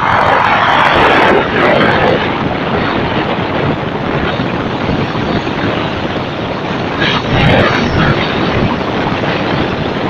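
Sea surf breaking and washing up a pebble beach: a loud crash and rush of foam in the first two seconds, another about seven seconds in, with a steady rumble of sea between.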